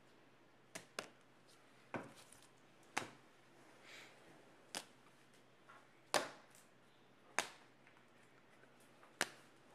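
A run of sharp clicks and taps at irregular spacing, about eight in ten seconds, from trading cards being handled and set down on a table.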